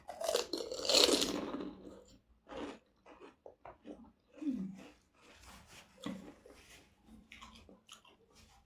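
A bite crunching through a crisp pani puri shell, loudest in the first two seconds, followed by steady chewing with small wet clicks and smacks.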